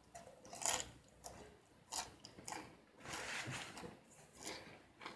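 Faint chewing and mouth noises from a person eating: a few short, scattered clicks, with a slightly longer stretch of chewing about three seconds in.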